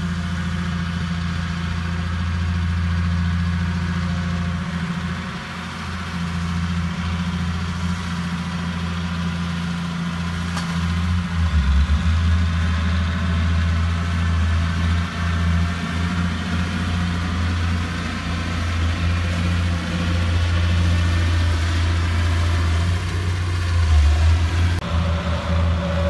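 Komatsu D31 crawler bulldozer's diesel engine running steadily with a low hum as the machine pushes dirt.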